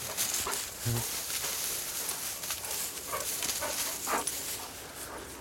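Two dogs, a Weimaraner and a German shorthaired pointer, running through long grass close by: a steady rustle with several short dog sounds spread through it.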